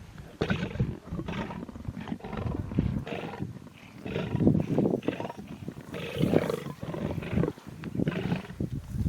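Lion cubs growling at each other in a rapid run of short growls while squabbling over a scrap of meat from a kill.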